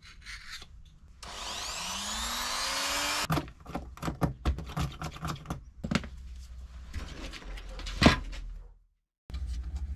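Cutting a plastic blank cover: a small motor runs briefly with a rising whine and stops abruptly, then come irregular scraping and cutting strokes with clicks and one sharp snap near the end.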